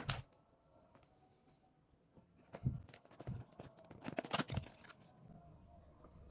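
Handling noises: a soft knock at the start, then a string of small knocks and clicks through the middle, at low level.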